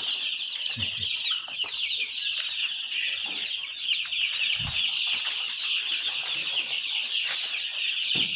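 A brooder full of young chickens peeping continuously, a dense chorus of many short, high, falling cheeps, with a soft low thump about halfway through. The keeper takes the birds' crowding together as a sign that the brooder is too cold.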